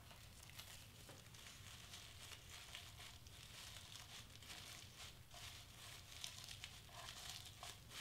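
Faint rustling and crinkling of tissue paper as it is scrunched and pressed by hand, in small irregular bursts.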